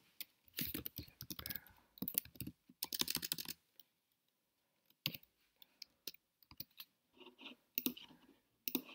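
Typing on a computer keyboard: a quick run of key clicks in the first few seconds, then after a pause, scattered single clicks of keys or a mouse button.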